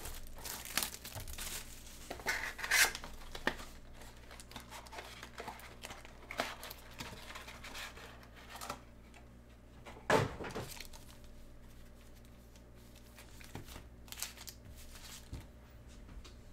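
Plastic wrap on sealed trading-card boxes crinkling and tearing as it is pulled off, in short scattered crackles and rustles, with one louder knock about ten seconds in.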